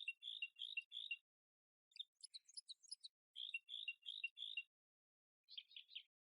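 High bird-like chirping in short groups: a quick twittering run, then four clear chirps, with the same pattern coming round again about three and a half seconds later, and a shorter run of three chirps near the end.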